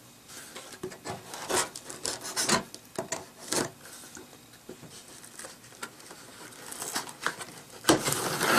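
Hands rubbing and sliding over a cardboard shipping box and its packing tape, in short irregular scraping strokes. Near the end a louder, longer scraping as the tape is cut with a blade to open the box.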